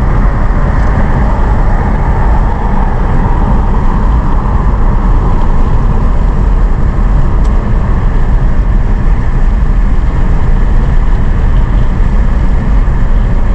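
Steady road noise inside a moving car: a constant rumble of engine and tyres with air noise, loud and unchanging.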